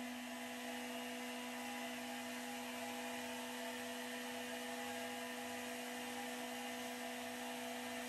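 The electric tilt drive of a BETOX 1307-1 welding turntable running with a steady hum while the heavy table tilts over.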